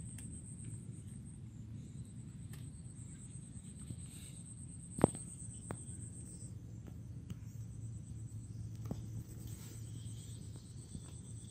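An insect's steady high-pitched trill that fades about six seconds in, over a low rumble on the microphone, with one sharp click about five seconds in and a few fainter clicks.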